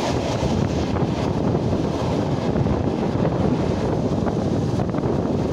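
Steady rumble of a moving electric commuter train heard from inside the carriage: wheels running on the rails with air rushing past.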